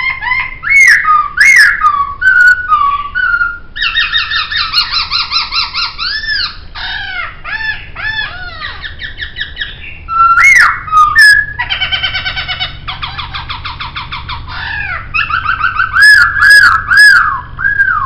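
Poksay (laughingthrush) singing a varied song: loud whistled notes that rise and fall, fast rattling trills, and a run of repeated upslurred-then-falling phrases near the end.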